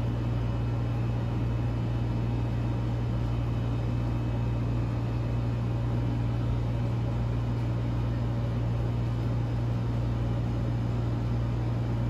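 Steady low machine hum with a faint even hiss, unchanging throughout.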